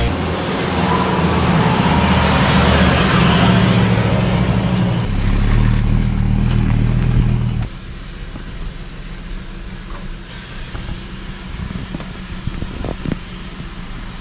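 A motor vehicle's engine rumbles steadily under a rushing noise for about seven and a half seconds, then cuts off suddenly. Quieter outdoor background with a few small knocks follows.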